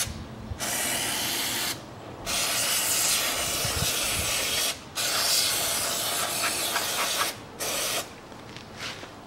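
Aerosol spray cleaner hissing from a can in three long bursts and a short one near the end, washing spilled engine oil off the engine and frame.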